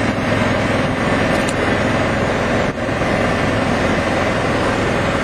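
Steady, loud running noise of a golf cart on the move, with wind buffeting the microphone; the noise dips briefly about halfway through.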